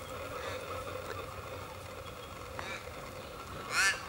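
Border Collie puppy giving a short, high-pitched yelp near the end, with a fainter yip or two earlier, over a steady faint hum.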